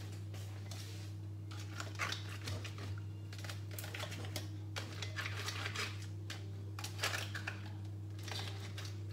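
A metal spoon scraping and clinking against a stainless steel pot in irregular bursts as seafood is stirred, over a steady low hum.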